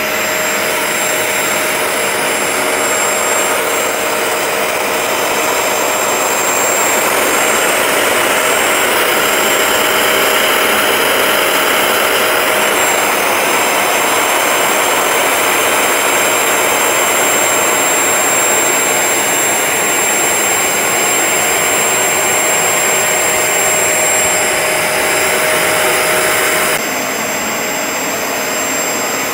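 Bissell ProHeat 2X Revolution Pet Pro carpet cleaner running as it is pushed over carpet: a steady, loud suction-motor whine with a rushing hiss. The sound steps down slightly near the end.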